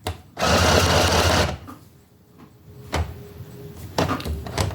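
Small Aldi-sold sewing machine running in a short burst of stitching, about a second long, then stopping. A few sharp clicks follow near the end.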